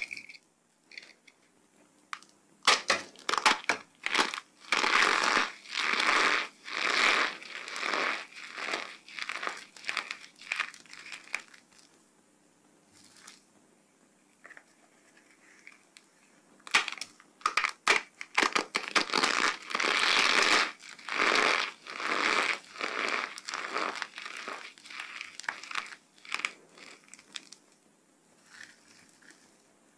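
Hands crushing and crumbling dry soap with cornstarch: crisp crackling crunches in two long spells with a quiet pause in the middle, fading to a few light crackles near the end.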